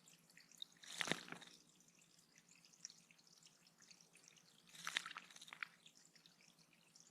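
Faint water dripping and splashing at a bird pond, with two louder splashy spells, about a second in and around five seconds in.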